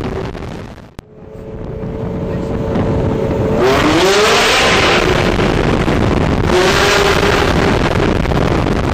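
Ferrari sports car engines running hard in a road tunnel. The sound drops out briefly about a second in, then builds up again, and the revs climb and fall twice.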